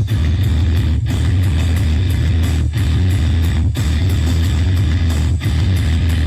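Rock music with electric guitar and heavy, steady bass, played loud through a contest sound system.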